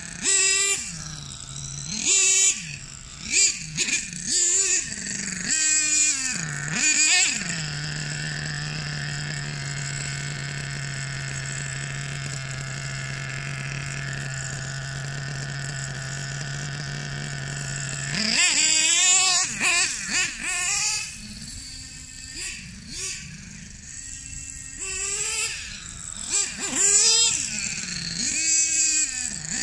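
Nitro glow engine (Hobao Hyper 30 Turbo) of an RC monster truck revving in short bursts that rise and fall in pitch, settling into a steady idle for about ten seconds midway, then revving in bursts again. The owner says the engine runs rough and keeps bogging, needing further carburettor tuning.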